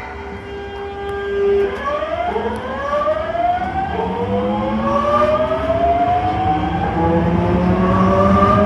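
Osaka Metro 22 series subway train's inverter traction motors whining as the train pulls away. A steady tone gives way a little under two seconds in to several pitches climbing together, which step up again about four seconds in and keep rising as the train gathers speed.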